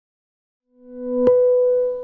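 Synthesized logo sting. A steady tone swells up from silence, a sharp click lands at its peak a little past a second in, and then the tone begins to fade.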